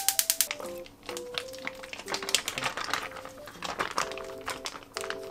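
A plastic zip-top bag crinkling and rustling as marinated chicken is squeezed out of it and drops into a frying pan, with scattered taps. A rapid, even clicking stops about half a second in, and soft background music plays throughout.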